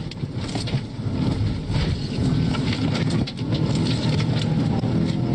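Police cruiser at speed in a pursuit, heard from inside the car: a steady engine drone with tyre and wind noise and scattered knocks.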